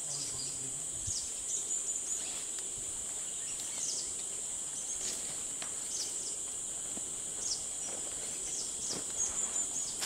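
Steady high-pitched insect buzz, a continuous drone of crickets or similar insects. Short, high, falling bird chirps come about once a second over it.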